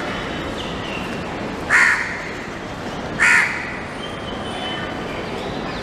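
A crow cawing twice, two short harsh calls about a second and a half apart, over steady background noise.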